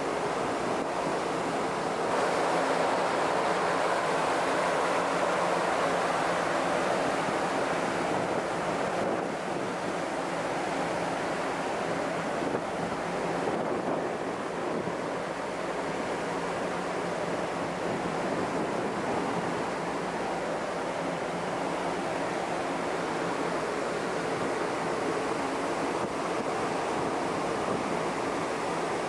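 Water rushing steadily along the hull of a moving ferry, mixed with wind on the open deck and a faint low hum underneath. It swells a little a couple of seconds in.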